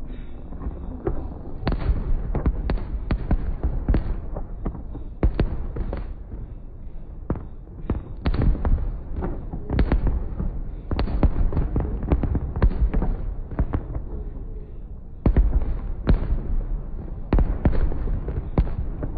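Fireworks going off in rapid volleys during a finale, dense clusters of sharp bangs and crackles with short lulls between them, over a steady low rumble.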